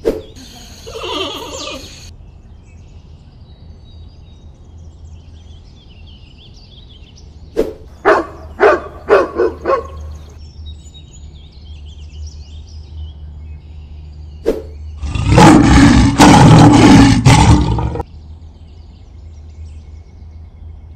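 Added animal sound effects: a dog barks about six times in quick succession about eight seconds in, then a loud lion roar lasts about three seconds near the end. Faint bird chirping runs underneath.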